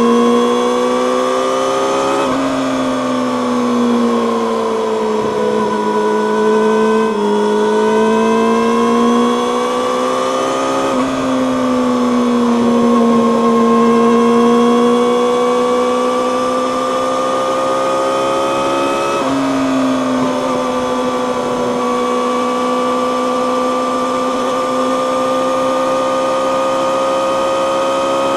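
Yamaha YZF-R6's inline-four engine through an Akrapovic megaphone slip-on exhaust, running at steady moderate revs while riding. Its pitch rises and falls gently, with sudden shifts about 2, 7, 11 and 19 seconds in.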